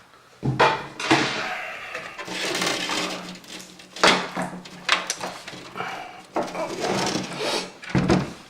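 Computer case and power supply being handled and turned onto its side: a run of knocks and clunks against a hard surface, with scraping and rustling between them.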